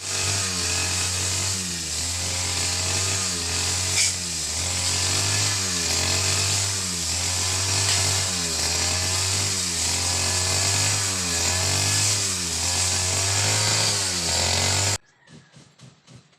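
A motorised tool or small engine running steadily, its pitch rising and falling in a regular cycle about once a second. It cuts off suddenly near the end.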